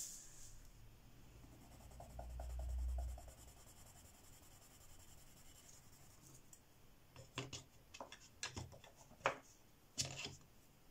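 Wooden coloured pencil shading a swatch on paper, a faint scratchy hiss, with a dull low bump about two seconds in. A few short, sharp scratches or clicks follow in the last few seconds.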